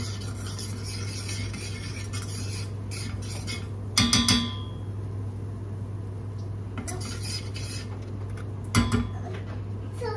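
A metal spoon stirring and scraping flour into melted butter in a stainless steel saucepan, making a roux, over a steady low hum. The spoon knocks against metal with sharp ringing clinks twice, about four seconds in and again near the end.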